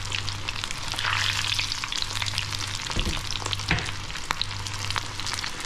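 Crumbed jalapeno poppers deep-frying in a pan of hot oil: steady sizzling and crackling with many small pops, over a low steady hum. Two soft low knocks come about three seconds in.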